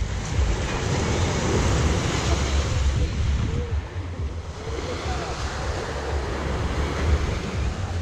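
Black Sea waves washing onto the shore in a steady wash of surf, with wind rumbling on the microphone.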